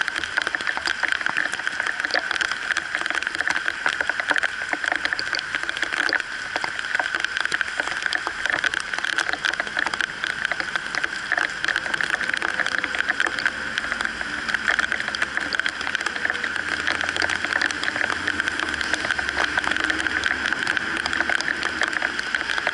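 Heavy rain falling on a wet road, a dense steady crackle of drops striking close by, with traffic going past on the wet street. A low engine rumble comes in about fourteen seconds in and fades about seven seconds later.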